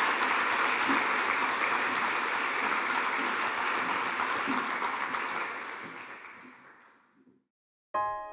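Audience applauding, fading away about seven seconds in. Near the end, a short silence gives way to a sustained chord of music.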